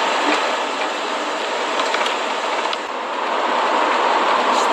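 Steady rushing road and engine noise inside the cabin of a moving camper van.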